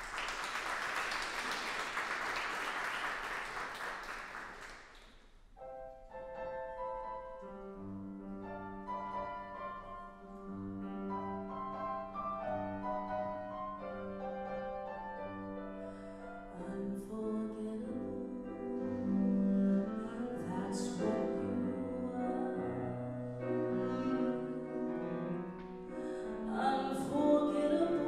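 Audience applause dies away over the first five seconds, then a piano plays a slow introduction of held chords. About seventeen seconds in, a woman's voice comes in singing over the piano.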